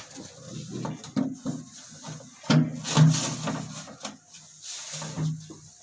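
Scraping, rubbing and light knocks of a plastic flush tank and its fittings being handled and pushed into place, loudest about halfway through.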